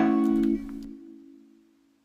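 Background music ending: a final chord is struck and held, then fades away to silence.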